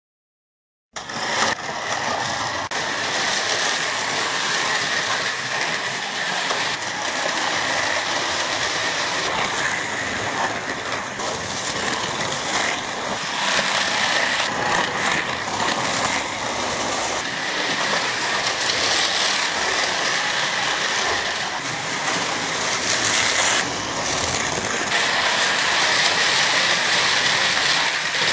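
Carrera GO!!! slot cars racing on a plastic four-lane track: small electric motors whining together with the rattle of the cars running in the slots. The sound starts abruptly about a second in and then runs steadily.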